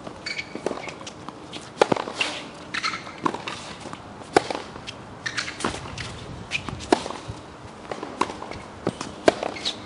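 Tennis rally on a hard court: racket strikes on the ball trading back and forth, the loud ones about every two and a half seconds with fainter ones in between, and short sneaker squeaks from players pushing off.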